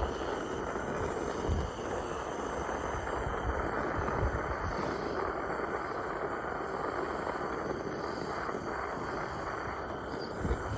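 Gas torch flame hissing steadily as it heats a 2/0 battery cable connector to melt the solder pellet inside.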